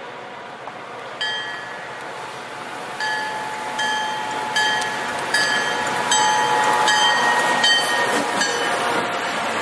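MBTA commuter rail locomotive's bell ringing as the train comes into the station: from about a second in, a clear ring repeats roughly every 0.8 seconds. Under it the rumble of the approaching train grows louder.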